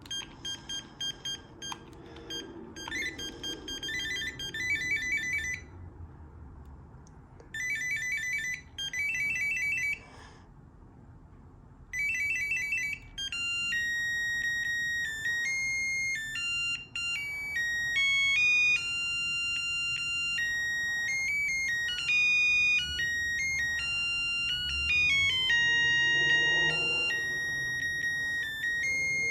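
Panasonic KX-TG210 cordless handset's ringer playing its ringtones. First comes a rapid electronic trilling ring in short bursts with pauses. About 13 seconds in, it switches to a beeping melody of single tones stepping up and down in pitch.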